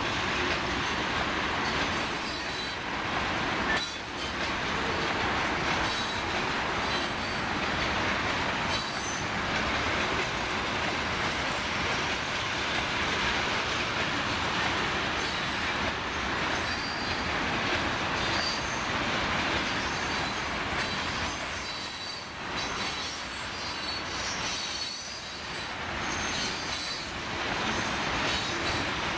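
Freight cars of a long mixed manifest train rolling past, a steady rumble and rattle of steel wheels on rail, with brief high-pitched wheel squeals now and then.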